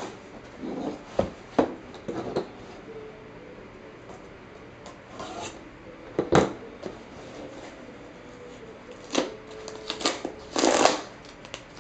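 Small cardboard mailing box being handled and pulled open on a table: scattered scrapes and rustles, a sharp knock about six seconds in, and a short ripping burst near the end as the flap is torn open.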